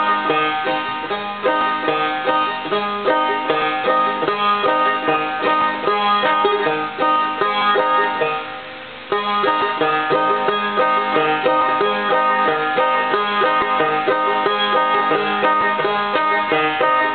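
Banjo played clawhammer style: a steady stream of plucked notes, dropping away briefly a little past halfway before picking up again.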